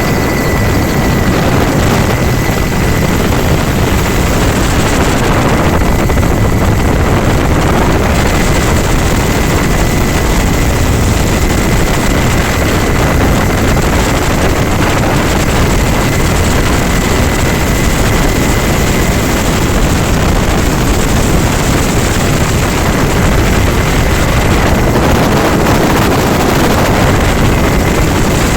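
Firefighting helicopter running steadily overhead, its engine and rotor noise continuous, with a steady high whine.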